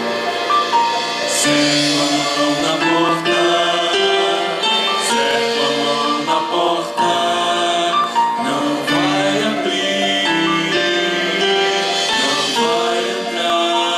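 Music with voices singing together over held instrumental notes.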